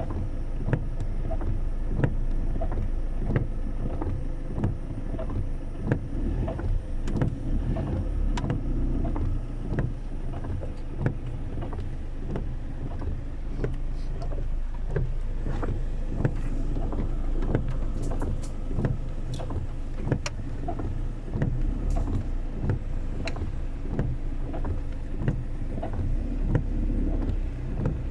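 Steady low rumble of a vehicle driving in heavy rain, with the hiss of water and many irregular sharp taps of raindrops on the car.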